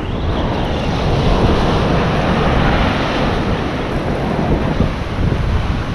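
Wind buffeting the microphone over the steady wash of ocean surf on the shore.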